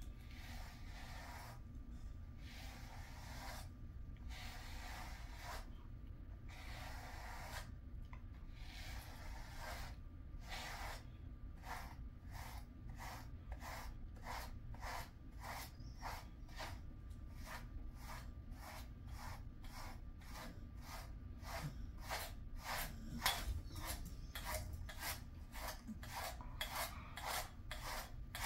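Grooming brush drawn repeatedly through a Jindo dog's thick coat: scratchy rasping strokes, slower and longer at first, then quickening to about two strokes a second after roughly ten seconds.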